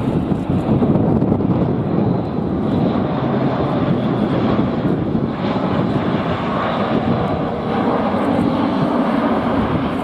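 Airbus A400M Atlas flying low overhead in a steep banked turn, its four Europrop TP400 turboprop engines and propellers running with a loud, steady noise.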